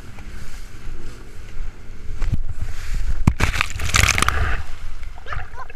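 Water splashing and knocking against a phone in a waterproof case as a towed tube bounces over boat wakes, over a steady low rumble of wind and water. A few sharp knocks come about two seconds in, then a loud burst of splashing peaks around the middle and dies away.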